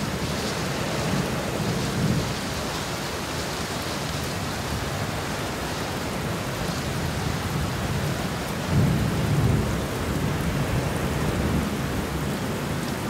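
Steady rain falling through a thunderstorm, with low rolling thunder; a louder rumble of thunder swells up about nine seconds in.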